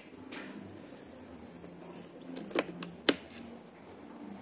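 Two sharp clicks about half a second apart, a little past halfway, over low background noise, as the PCP air rifle is handled between shots.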